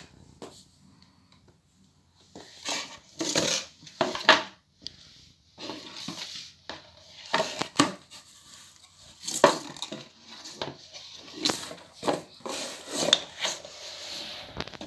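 Handling noise: irregular knocks, scrapes and rustles as cardboard packaging and a wooden pinhole camera are moved about and set down on a tiled floor, starting about two seconds in.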